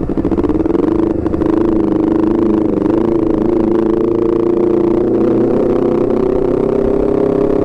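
Honda CBR250RR motorcycle engine through an aftermarket R9 racing exhaust, held at high revs under way. It gives one high, steady note that climbs slowly in pitch as the bike gathers speed.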